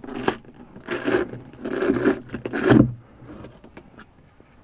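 Industrial-strength Velcro tearing apart as a Luon-wrapped trim panel is pulled loose, in four rough ripping pulls over the first three seconds, the last one the loudest.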